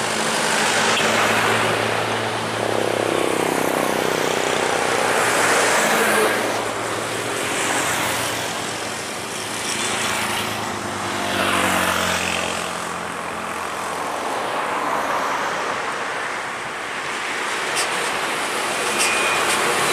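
Heavy diesel trucks and other traffic driving past on a highway: engines running and tyre noise swelling and fading as each vehicle goes by. Around the middle, one engine's note drops in pitch as it passes.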